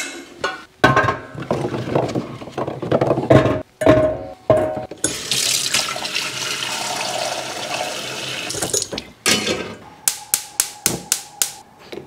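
Tap water running steadily into a cooking pot for about four seconds, after a few seconds of knocking and clattering. Near the end comes a quick series of sharp clicks, about four or five a second.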